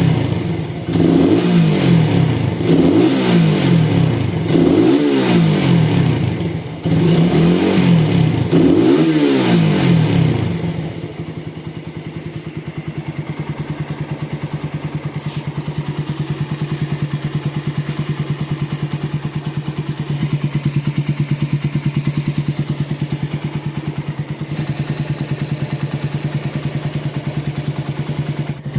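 Motorcycle engine with a new vacuum carburettor and BRT CDI and coil, revved up and let drop about five times, then settling to a steady idle about ten seconds in. The owner calls it running smooth and healthy.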